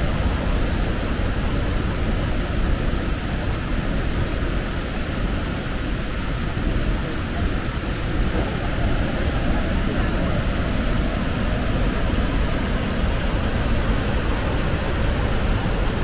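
Loud, steady rush of the Iguazu Falls close up, heaviest in a deep low rumble.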